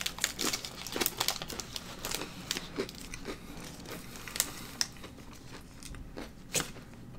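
Foil wrapper of a Pokémon card booster pack crinkling and crackling as it is handled and the cards are pulled out. The crackles are thick for the first few seconds, then thin out to a few scattered ones.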